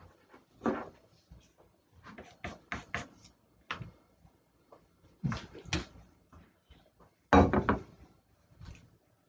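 Classroom room noise: scattered knocks, bumps and handling sounds, with brief snatches of voices. The loudest burst comes about seven seconds in.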